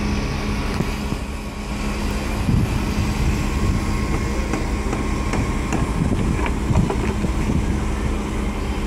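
A steady mechanical hum holding one low pitch, over a continuous low rumble.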